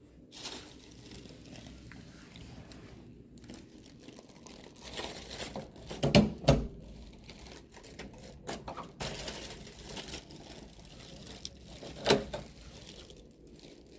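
Thin plastic carrier bag crinkling and rustling as it is picked up and handled with a boxed meal inside, with two sharp knocks about six seconds in and another near the end.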